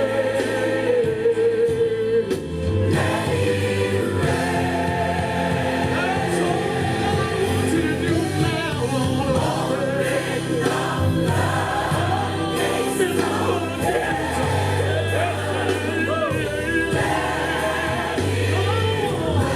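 Gospel music: a choir singing, with wavering, held vocal lines over a steady low accompaniment.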